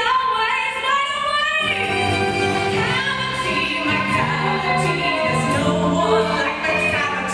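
Recorded music: a sung melody with held, gliding notes over instrumental accompaniment that comes in about two seconds in.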